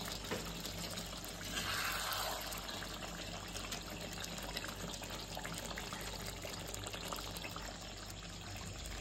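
Chicken curry gravy bubbling in a steel pan, a steady watery sizzle, with a ladle stirring through it and lifting the pieces. The sound swells briefly about a second and a half in.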